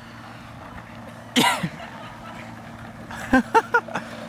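Excited human shouting: one loud, high whoop about a second and a half in, then a quick run of four short yelps near the end, over a faint steady hum.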